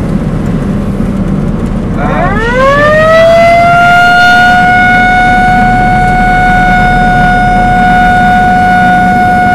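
Outdoor tornado warning siren winding up about two seconds in, its pitch climbing within a second and then holding one loud steady tone, over the low rumble of a vehicle.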